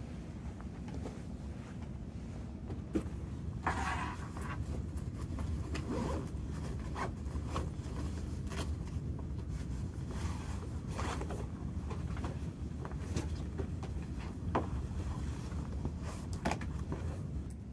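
Backpack being handled: a zipper pulled, with scattered rustles and light knocks of the bag and its contents, over a steady low hum.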